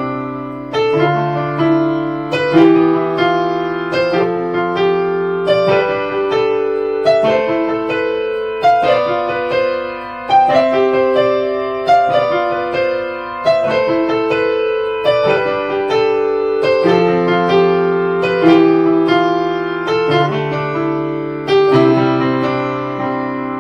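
Keyboard in a piano voice playing a slow progression of sustained major chords. Each chord is approached with a couple of leading notes before the full chord lands, the chord-embellishing trick being taught.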